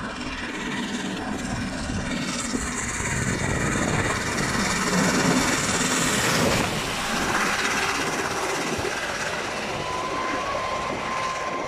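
LNER Peppercorn Class A1 three-cylinder Pacific steam locomotive 60163 Tornado passing through, growing louder until it goes beneath about halfway through. Then comes the steady rumble of its coaches running over the rails.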